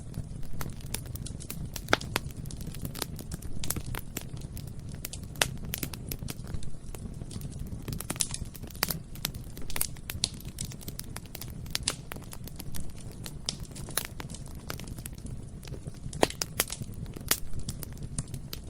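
Bonfire burning: a steady low rumble of flames with frequent irregular crackles and sharp pops of burning wood, a few of them louder snaps.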